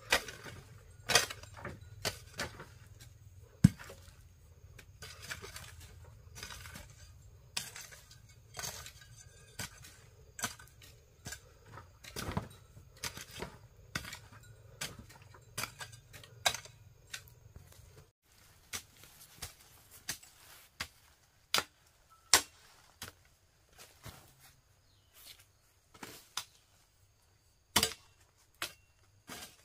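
Irregular sharp knocks and clinks of hard objects, over a low steady hum that cuts off about eighteen seconds in.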